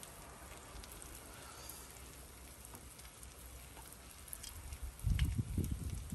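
Two eggs frying in butter on a flat-top steel griddle: a steady sizzle with fine crackling pops. About five seconds in, irregular low rumbling bursts come in, louder than the sizzle.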